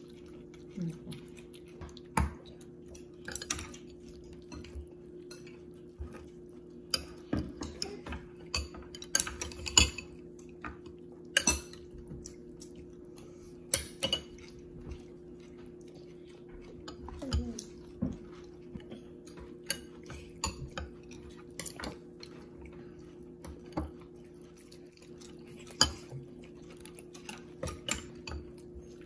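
Metal spoon clinking and scraping against a bowl as a small child scoops up curry rice: irregular sharp clicks every second or so. A steady low hum runs underneath.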